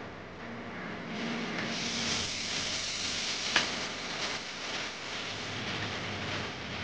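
Kubota DC-70G combine harvesters working through ripe rice: a steady hissing rush over a faint low hum, swelling about a second in, with a sharp click a little past the middle.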